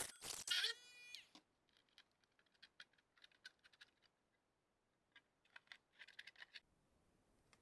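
A small cordless rotary tool with a cut-off wheel finishes cutting through a plastic splash guard, and its motor winds down with a falling whine about a second in. Then come faint, scattered clicks and crackles of the stiff plastic piece being handled and flexed.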